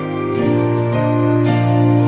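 Gentle instrumental background music, a new note struck about every half second over held tones.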